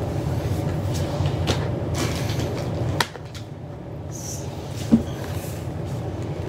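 Large cardboard LEGO box being handled and worked open: scattered scrapes, creaks and clicks, with a sharp click about five seconds in. Under it a steady low rumble drops away about three seconds in.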